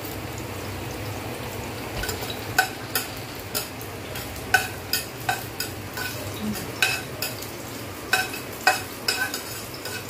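Chopped garlic sizzling in oil in a metal pressure-cooker pot as it is sautéd. A metal spoon stirs it, and from about two seconds in it clinks and scrapes against the pot in quick irregular strikes.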